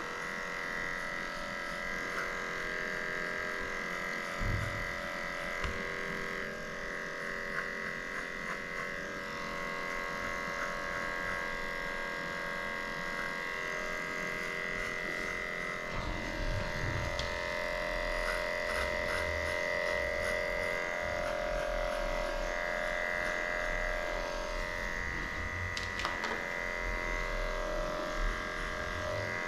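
Electric dog grooming clippers fitted with a short No. 10 blade running with a steady whine as they shave through dense mats lying close to the skin on the paws.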